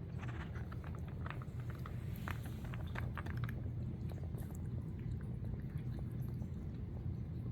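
A Siamese cat crunching dry treats: a quick run of small crisp crackles over the first few seconds, thinning out later, over a steady low hum.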